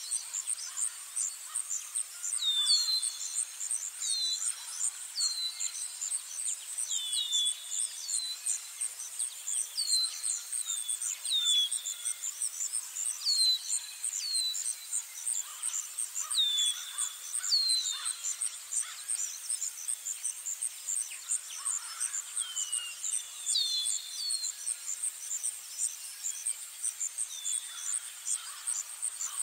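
Natural outdoor ambience: a steady, high, rapidly pulsing insect trill, with short descending bird chirps repeated every second or two, often two or three in quick succession.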